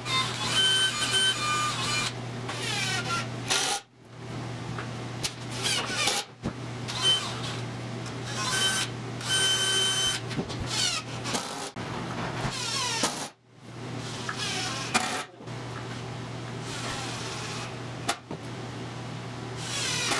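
Cordless drill-driver running in short bursts, its motor whine rising and falling as it speeds up and slows, while drilling and driving screws into pine boards. The bursts are broken by several abrupt cuts.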